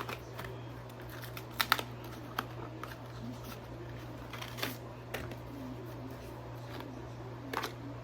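Scattered small clicks and taps of hands handling a compact camera and its parts, with a few sharper clicks about a second and a half in and again near the end, over a steady low hum.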